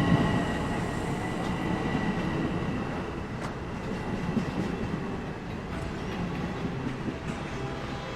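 A train running on the rails: a steady rumble that slowly fades, with a thin high tone that dies away within the first second and a few faint clicks.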